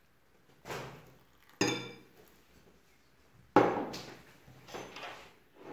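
A glass measuring jug clinks with a short ring against a glass mixing bowl as warm water is poured into it. Then the jug is set down on the table with a sharp knock, the loudest sound, followed by a few lighter knocks.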